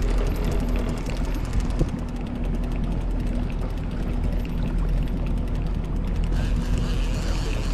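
Fishing reel being cranked to bring in a walleye, its gears clicking rapidly, over the steady hum of the boat's motor.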